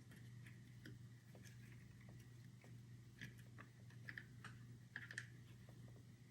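Near silence with a low steady hum and a few faint small clicks and taps, mostly in the second half, from hands pressing an M.2 SSD down into its motherboard slot and securing it.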